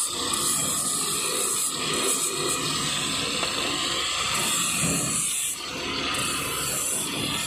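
Handheld angle grinder with an abrasive disc deburring the teeth of a brass gear: a steady motor whine under a hissing scrape that swells and drops in stretches as the disc touches and leaves the teeth.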